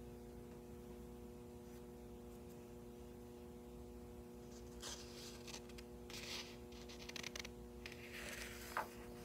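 Quiet room with a steady electrical hum made of several tones. In the second half come faint rustles and small clicks, like paper being handled.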